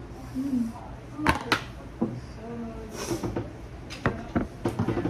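Several separate knocks and clatters of kitchen things being handled, with a short hiss near the middle and brief murmured voices.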